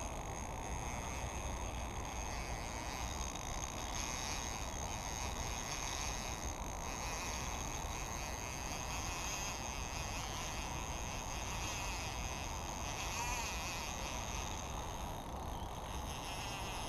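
Insects chirring in a steady high buzz over a low, even wind rumble on the microphone.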